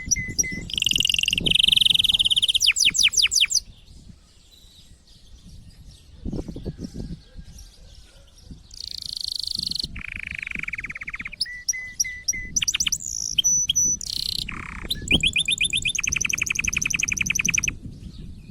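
Domestic canary in full breeding song: phrases of fast repeated-note trills and rolls, with a short pause about four seconds in before the song resumes. It is the excited song of a canary in breeding condition, used to bring a hen canary into condition.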